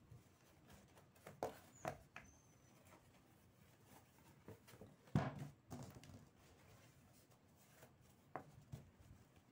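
Handling noise as an elastic-edged fabric cover is pulled onto an MDF sousplat base: soft rustling and a few light knocks of the board on the table. The loudest knock comes about five seconds in.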